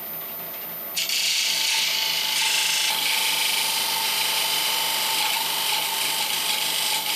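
Wood lathe spinning an oak saucer. About a second in, the edge of an ordinary ruler is pressed against the turning wood to scratch in a decorative pattern, giving a loud, steady scraping hiss.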